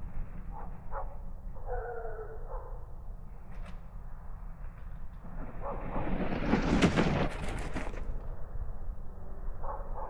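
Wind buffeting the microphone over a steady low rumble, with a short pitched whine about two seconds in. Around seven seconds a louder hiss and crackle: a fat-tire ebike's rear tire sliding and spraying snow.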